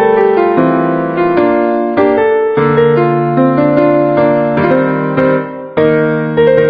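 Solo piano playing a pop-song arrangement: chords in the right hand over a steady bass line, with a brief drop-off about five and a half seconds in before the next phrase starts.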